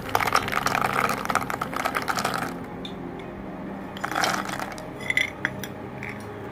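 Raw peanuts poured from a steel bowl into a glass bowl of batter, rattling and clattering for about two and a half seconds. A shorter rattle follows about four seconds in as the last ones are tipped out, then a few clinks.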